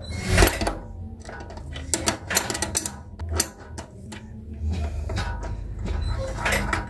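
Open-end wrench clinking against the nut and mounting bracket of an industrial sewing machine's clutch motor as the nut holding the motor is loosened: a series of sharp metallic clicks and knocks.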